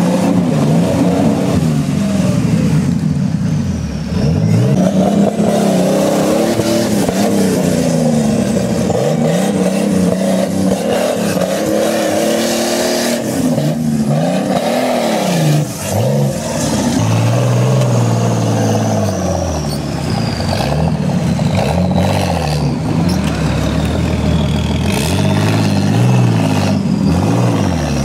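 Engines of 4x4 off-road trial specials revving hard, the pitch climbing and dropping again and again as the throttle is worked while they claw through mud.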